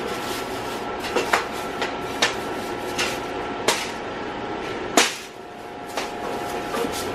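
A long-handled scrub brush knocking and clanking against the bars and tray of a metal wire dog crate as it is scrubbed: a string of sharp metal knocks, the loudest about five seconds in, over a steady hiss.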